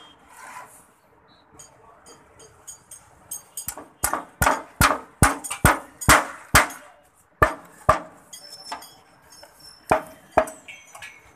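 A run of about ten sharp hammer blows on timber, two to three a second, then a pause and two more blows near the end: a worker hammering the wooden planks of concrete formwork (centring).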